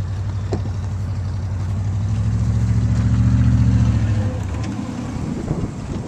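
Chevrolet pickup truck with a snow plow blade, its engine running as it drives close by, growing louder to a peak about three and a half seconds in, then fading.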